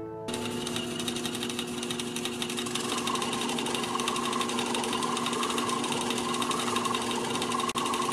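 Facetron faceting machine running, with a gemstone on a dop held against its spinning cerium oxide polishing lap: a steady motor hum under a hissing grind that swells and fades about once a second.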